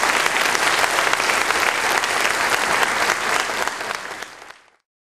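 A large congregation applauding, a dense patter of many hands clapping that fades out and stops near the end.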